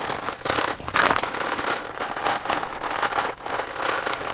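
Plastic bag of shredded mozzarella crinkling and rustling as it is shaken out over the pasta, in a run of irregular crackles.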